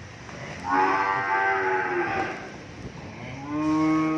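Cattle mooing: two long calls, the first starting under a second in and lasting nearly two seconds, the second starting near the end and still going.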